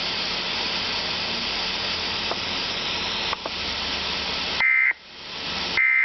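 Radio static hiss, then near the end two short bursts of Emergency Alert System data tones, each about a third of a second and a second apart: the SAME end-of-message code that closes the warning broadcast.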